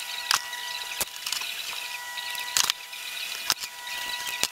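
Small sharp clicks and taps, about five in all at uneven intervals, as a screwdriver works on a servo's mounting screws and the plastic servo is handled out of a small RC helicopter's frame, over a faint steady hiss and high hum.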